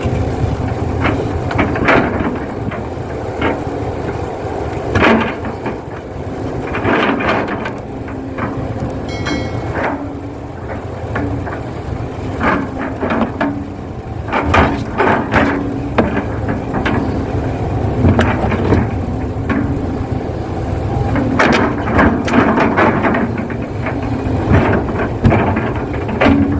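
Excavator digging and loading soil into a dump truck: a steady drone from its engine and hydraulics, with repeated clunks and knocks as the bucket works and dirt drops into the truck bed.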